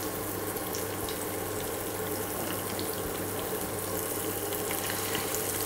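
Masala-coated boiled eggs sizzling steadily in hot oil in a kadhai, an even frying hiss with a faint low hum under it.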